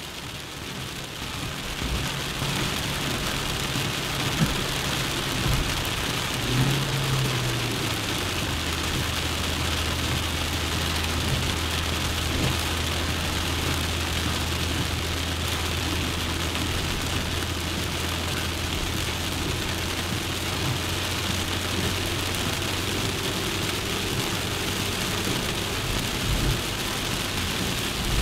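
Suzuki Jimny driving, heard on board: the engine's low drone under a steady rushing noise. About eight seconds in, the drone settles to a lower, steadier hum.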